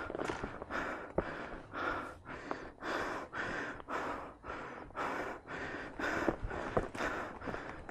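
A person breathing hard and fast, about two breaths a second: the panting of hiking up a steep mountain trail.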